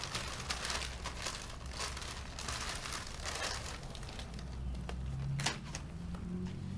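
Plastic packaging bags crinkling and rustling as they are gathered up and pushed aside, with one sharp click about five and a half seconds in.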